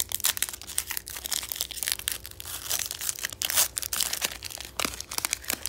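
Foil wrapper of a Pokémon booster pack crinkling and crackling as it is torn open by hand and the cards are pulled out of it.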